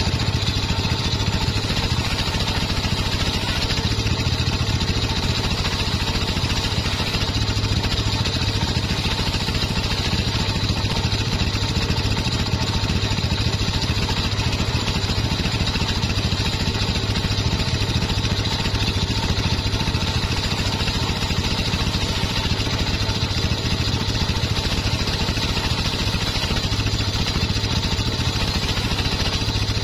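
Homemade circular saw bench running steadily, its blade ripping waru (sea hibiscus) boards into battens, a continuous loud drone of the spinning blade and its drive.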